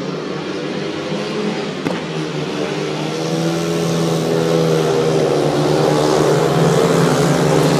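Speedway motorcycles' 500cc single-cylinder engines running at speed, growing steadily louder as they come nearer.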